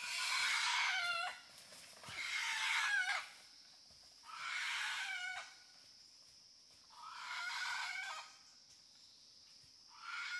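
Wild rooster crowing five times in quick succession, each crow lasting just over a second and ending in a bent, falling note, over a steady high insect drone.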